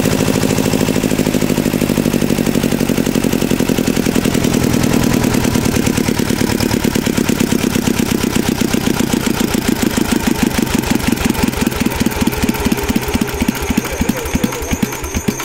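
Old 10 kVA two-cylinder diesel generator engine running steadily, then being shut off by hand at the fuel pump. Over the second half its firing slows into separate, spreading beats and it runs down to a stop at the very end.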